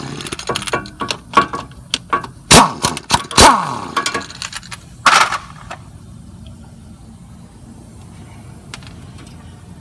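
Hand tools knocking and clanking against metal in irregular strikes during the first five seconds. Three of the strikes are loud and ring on briefly. After that there is only a low steady background.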